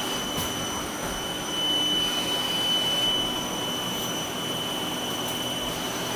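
Haas ST20 CNC turning centre running with its spindle turning and coolant spraying while a drill and tool work the spacer bar stock: a steady high whine over a wash of hiss.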